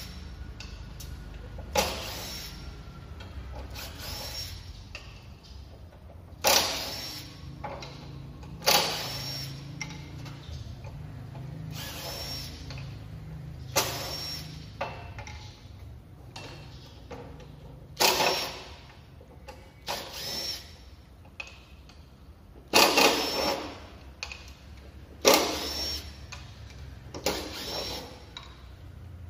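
Makita DTD149 18V cordless impact driver run in short bursts of under a second, every two to three seconds, working screws in wooden boards.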